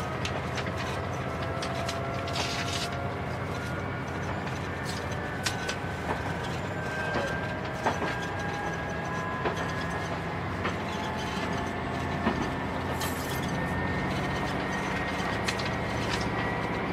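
Komatsu SA6D125H turbocharged straight-six diesel of a JR Shikoku 2000 series express railcar running under power, heard from inside the passenger cabin: a steady low drone with a whine slowly rising in pitch as the train gathers speed. Scattered clicks of the wheels over rail joints come through at irregular intervals.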